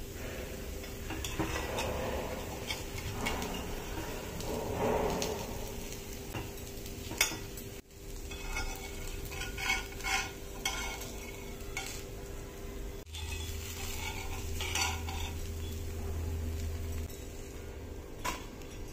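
A spatula scrapes along a hot griddle under a frying pancake, with a faint sizzle, as the pancake is loosened and lifted off. Sharp clinks of the spatula against the pan come in clusters in the second half.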